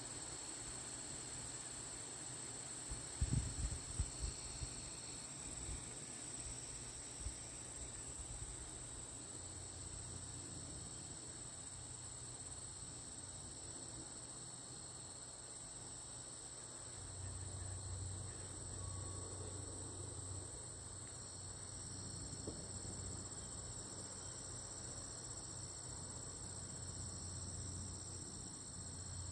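Steady chorus of insects, several overlapping high continuous tones, with a few short low thumps about three to four seconds in.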